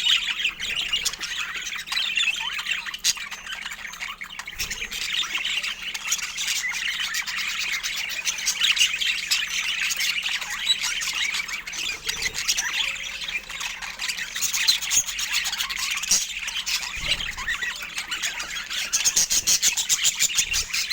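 Budgerigars chattering and squawking without pause, a dense mix of warbles, chirps and sharp clicks, with a quick run of rapid chirps near the end.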